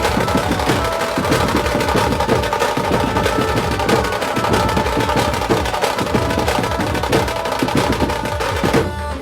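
Chhattisgarhi dhumal band playing: fast, dense drumming with a few held melody notes above it.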